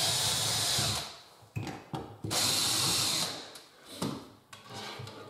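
Cordless drill-driver running in two bursts of about a second each, driving screws through a pull-out bin's runner into a kitchen cabinet's side panel, with short knocks of handling between and after.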